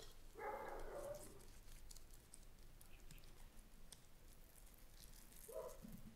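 Faint light ticking and pattering of a pastry brush dabbing egg wash and sesame seeds scattering onto a wooden board. A short animal call sounds about half a second in, and a briefer one near the end.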